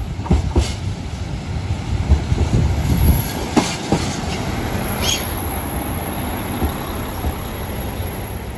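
Limited express Hokuto, a KiHa 261 series diesel train, pulling slowly into a station platform: a steady low rumble of wheels and engines, a few sharp clacks over the rail joints and a brief wheel squeal about five seconds in.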